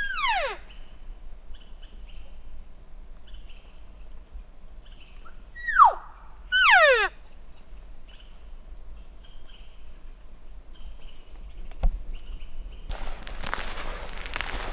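Three high, whistle-like cow-elk mews, each dropping steeply in pitch over about half a second: one at the start, then two close together about six to seven seconds in. Faint short chirps come between them, and near the end a rush of noise lasts about two seconds.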